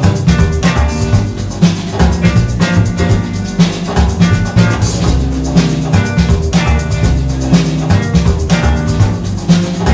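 Instrumental passage of a pop-rock song with no singing: a drum kit keeps a steady beat over bass and guitar.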